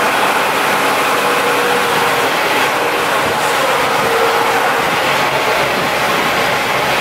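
700 kW Ricardo diesel generator set running steadily, a loud, even engine noise that holds constant throughout.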